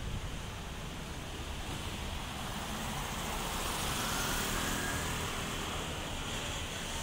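Steady outdoor road-traffic noise: a low rumble with a hiss over it that swells a little about four seconds in.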